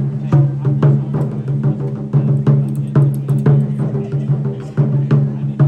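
Japanese taiko drums played in a fast, driving rhythm: many sharp strokes over a continuous low ringing of the drum heads.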